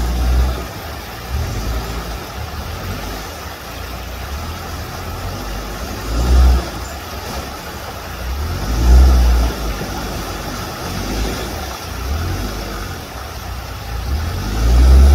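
Off-road 4x4 engine running under load, revved in several short bursts of throttle.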